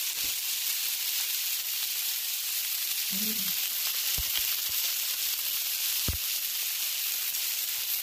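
Venison steaks frying on a hot flat-top griddle, a steady high sizzle.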